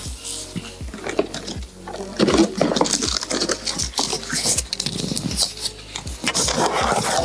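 Bernese mountain dog puppy chewing and tugging at plastic packing strap, the plastic crackling and scraping irregularly.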